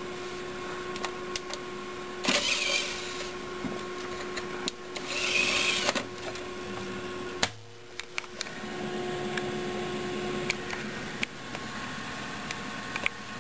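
NZXT Apollo PC case running, its cooling fans giving a steady whirring hum. Two short rushes of noise about two and five seconds in, and scattered clicks, come from the case or camera being handled. The sound dips briefly about halfway through.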